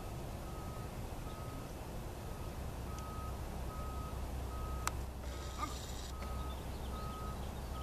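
A vehicle's reversing alarm beeping steadily, about one and a half beeps a second, over a low rumble that grows stronger about three seconds in. A single sharp click sounds just before five seconds.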